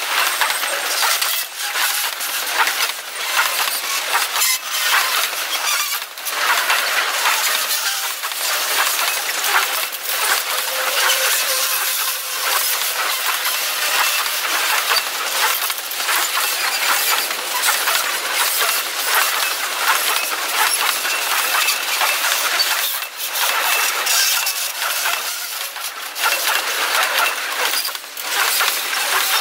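Loaded grain hopper cars of a freight train rolling past close by. Their steel wheels on the rails make a continuous loud rushing noise, with many sharp metallic clicks and clinks all the way through.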